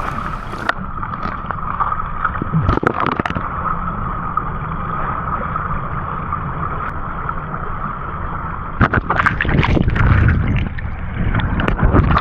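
Water rushing and splashing, with a few knocks about three seconds in and a burst of louder splashes and knocks about nine seconds in.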